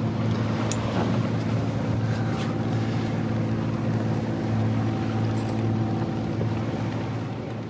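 A sailing yacht's inboard diesel engine running steadily, under wind and water noise.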